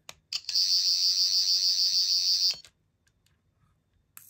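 A 13th Doctor sonic screwdriver prop switched on with a button click, giving its high electronic warble that pulses about six times a second for about two seconds and cuts off suddenly; a shorter burst of it comes near the end.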